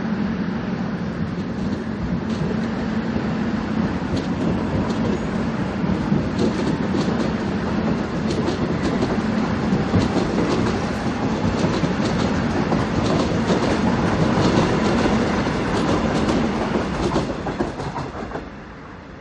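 A Seoul Metro Line 1 rheostatic-control electric multiple-unit train running close past, a steady rumble of wheels and running gear with repeated clacks as the wheels cross rail joints. The sound falls away suddenly near the end as the last car goes by.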